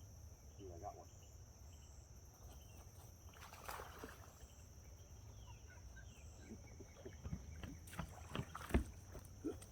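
Faint outdoor ambience on a lake: a steady high-pitched drone under a low rumble, with scattered faint chirps and a few light knocks about eight to nine seconds in.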